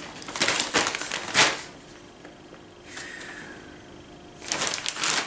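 Plastic postal satchel crinkling and rustling as it is handled, in two spells: through about the first second and a half, and again near the end, with a quieter lull between.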